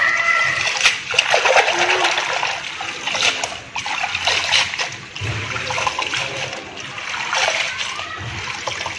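Water splashing and sloshing as hands swish and rub bunches of pennywort (rau má) leaves in a basin of water to wash them, in uneven surges.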